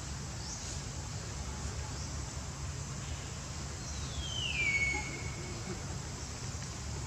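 A single high, whistle-like animal call about four seconds in, falling steadily in pitch over about a second and a half, over a steady low background hum.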